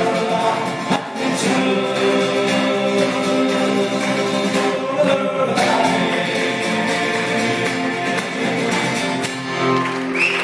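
Live Irish folk song: singing over a strummed acoustic guitar and a second plucked string instrument, the closing bars of the song.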